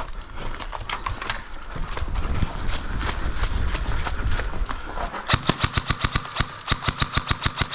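Scraping and crunching of movement over brick rubble, then, about five seconds in, an airsoft rifle firing rapid full-auto bursts of sharp snapping shots, about eight a second.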